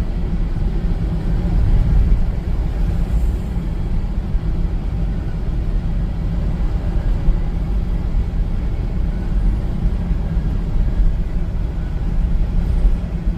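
Steady low road rumble of a car on the move, with no gear changes or other distinct events.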